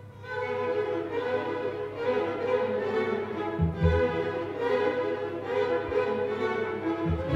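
Symphony orchestra playing classical music, the bowed strings prominent, swelling in from a brief hush at the start.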